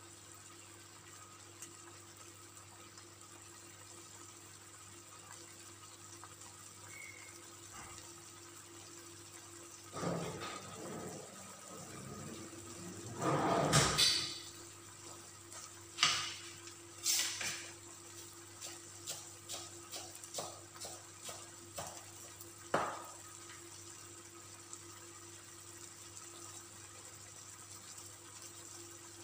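Kitchen handling noises over a faint steady hum: a rush of noise from about ten to fourteen seconds in, then a string of light knocks and clicks.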